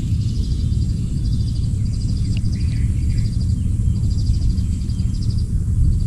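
Outdoor ambience: a steady low rumble with short, rapid high-pitched chirping trills repeating about once a second, and a couple of lower chirps in the middle.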